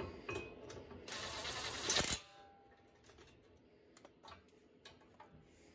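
Ryobi cordless impact wrench run up on a brake caliper bracket bolt to snug it: a short burst, then about a second of rapid hammering that stops suddenly. Faint clicks follow as the tool is handled.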